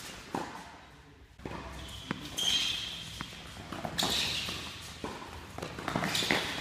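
Quick footsteps and shoe scuffs of a player doing a tennis footwork drill on court, with a few sharp knocks scattered through.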